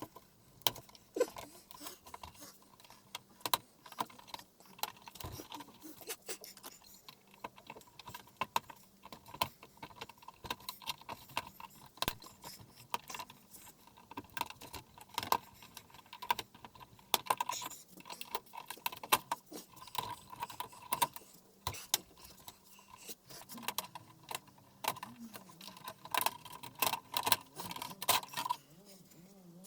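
Irregular clicks, taps and light clatter of tools, screws and plastic and metal panel parts being handled as an LED TV is taken apart.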